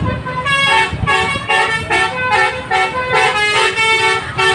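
Bus 'telolet' musical horn playing a quick tune of short notes that step up and down in pitch, several horn tones sounding together.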